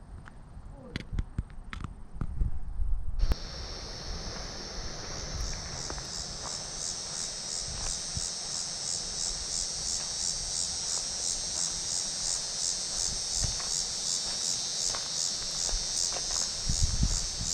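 Insects calling in chorus: a loud, high, shrill trill that pulses evenly about twice a second, starting suddenly a few seconds in. Before it, a few light clicks and low thumps of footsteps or handling noise.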